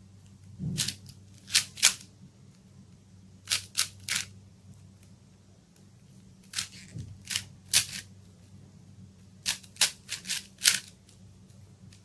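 Plastic 4×4 Rubik's cube being turned by hand: sharp clicks of its layers snapping round, in quick clusters of two to four every second or two.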